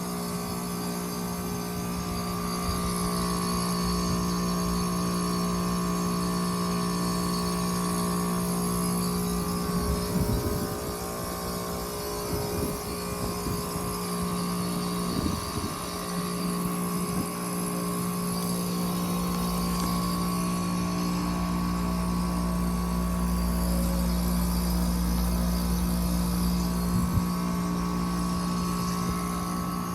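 2022 Gibson heat pump running through its defrost cycle: a steady mechanical hum with several held tones, a few brief noisy swells near the middle, and a deeper rumble coming in about two-thirds of the way through.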